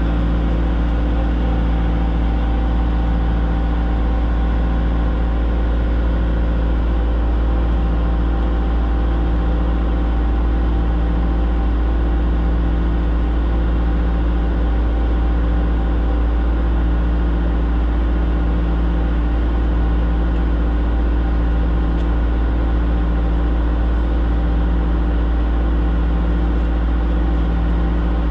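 An engine idling at a constant speed, loud and close, with no changes in revs.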